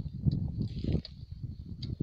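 Hand hoe chopping into loose, dry soil: a run of dull, irregular thuds.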